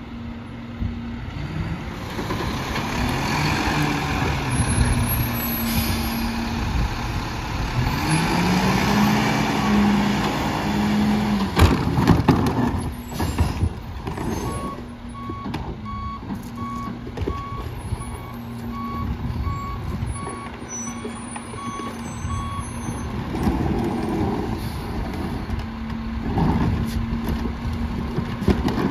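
Mack LEU garbage truck with a McNeilus rear-loader body: the engine revs up and down twice, a sharp clank comes about twelve seconds in, then a backup alarm beeps steadily for about eight seconds. Near the end a plastic cart knocks against the hopper as it is tipped in.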